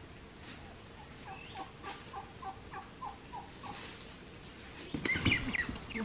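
Turkey calling: a run of about eight short, evenly spaced notes, roughly three a second. About five seconds in comes a louder, mixed burst of sound.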